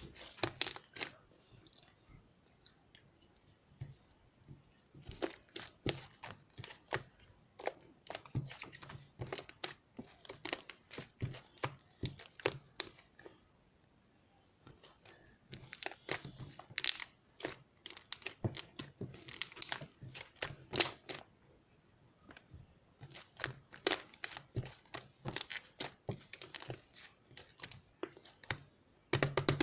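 Irregular crinkling and crackling handling noise, coming in bursts of several seconds with short pauses between them.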